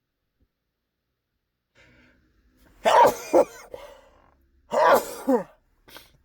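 A man sneezing twice, about two seconds apart, each sneeze loud and in two quick parts. A faint intake of breath comes before the first.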